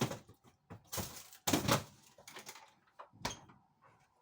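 A few knocks and scraping, rustling handling noises of objects being moved about. The loudest comes about one and a half seconds in, and a sharp knock follows near the end.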